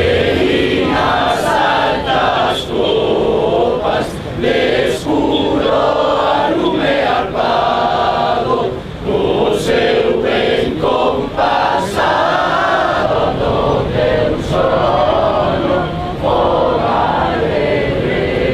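A crowd of demonstrators singing together, a long phrase-by-phrase song from many voices.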